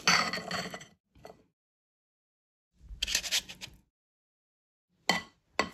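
Metal spoon scraping thick cake batter in a glass mixing bowl, heard in two separate short bursts with silent gaps between, then two quick knocks of the spoon near the end.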